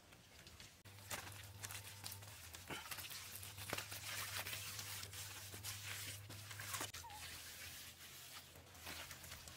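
Wet mud plaster being slapped and smeared onto a wall by bare hands: a string of soft slaps with wet rubbing and scraping in between.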